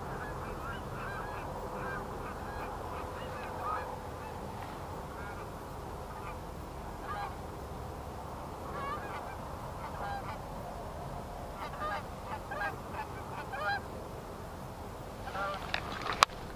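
A flock of geese honking as they fly in, calls overlapping and coming thick and fast, then a single sharp crack just before the end.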